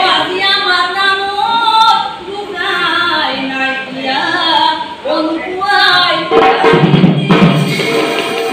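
A mixed group singing a devotional song together, women's voices prominent, with a deeper steady layer joining about six seconds in.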